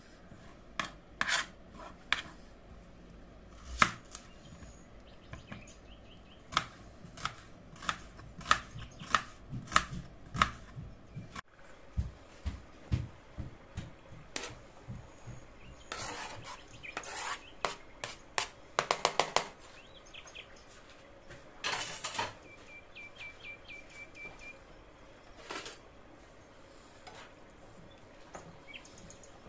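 Kitchen knife chopping an onion on a plastic cutting board, sharp knocks coming about once or twice a second. It then gives way to chopped vegetables being scraped off the board into a frying pan, and the clatter and rubbing of a spatula stirring them.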